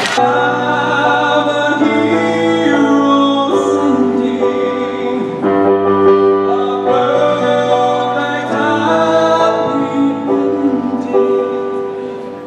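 Choral music: voices holding sustained chords that change every one and a half to two seconds, easing off near the end.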